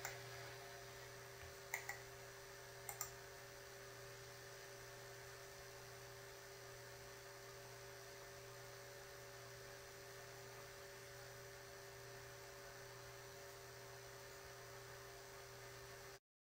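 Near silence: faint steady hum of the recording's room tone, with a few pairs of computer mouse clicks in the first three seconds. The sound cuts off abruptly near the end.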